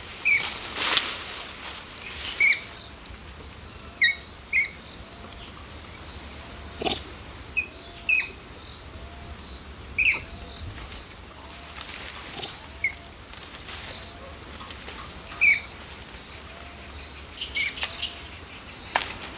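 Forest ambience: a steady high-pitched insect drone, with short bird chirps scattered throughout and a soft low note repeating evenly through the middle. A few brief rustles or snaps come in among them.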